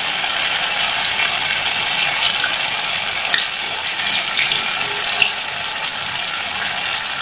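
Malpua batter deep-frying in hot oil: a steady sizzle with scattered small crackles.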